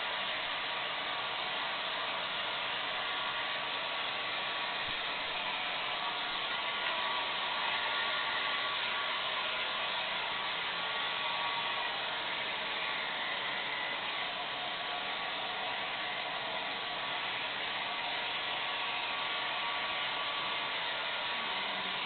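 Hand-held hair dryer running steadily: a continuous rushing hiss of air with a faint steady whine.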